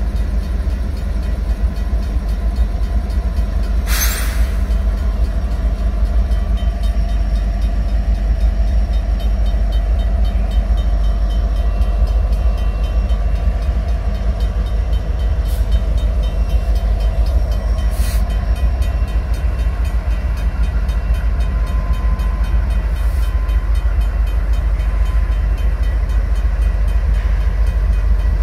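Diesel locomotives of a Union Pacific freight train passing at slow speed, engines running with a deep, steady low sound. A single sharp knock about four seconds in, and fainter clicks later.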